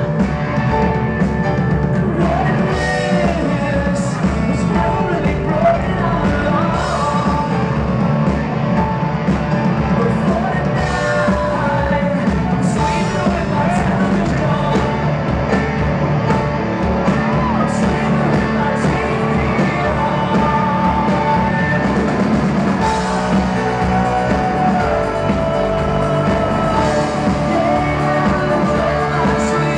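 Live rock band playing loudly and without a break: a male lead singer over a Baldwin piano, electric guitar and drums.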